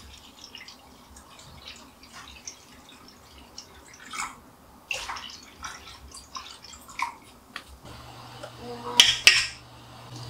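Liquid poured from a glass bottle into a stainless steel split hot pot, splashing in small uneven glugs, with a louder clatter about nine seconds in.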